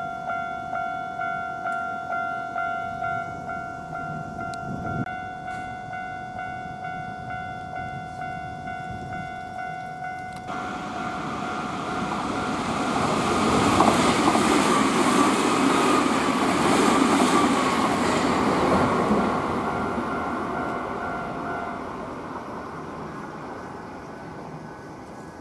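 A Japanese level-crossing warning bell rings in a steady repeating beat. About ten seconds in, after an abrupt change, a Nankai 50000 series rapi:t limited express electric train passes through the crossing: its rush of noise builds, holds loud for several seconds and fades away, with the crossing bell still ringing under it until near the end.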